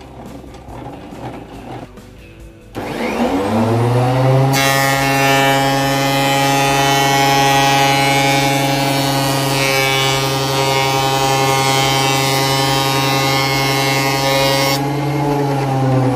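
Fujiyama portable thickness planer: its motor is switched on about three seconds in and spins up to a steady whine. A board is then fed through, and the cutterhead planing the wood adds a loud rushing noise for about ten seconds. The cut ends and the motor runs on alone, starting to slow near the end.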